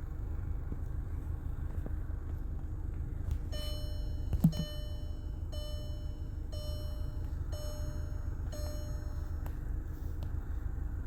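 Electronic warning beeps, six of them about one a second, starting a few seconds in, over a steady low rumble; one sharp thump sounds near the first beeps.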